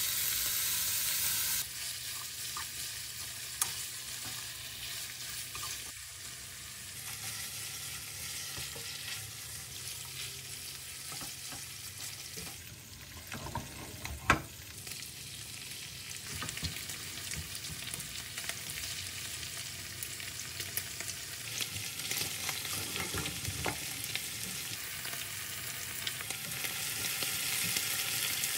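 Smoked duck slices sizzling as they fry in their own rendered fat in a nonstick pan, with small scrapes and clicks from chopsticks and a silicone spatula stirring them. A single sharp knock comes about halfway through. Near the end the sizzling grows a little louder, with kimchi now frying alongside the duck.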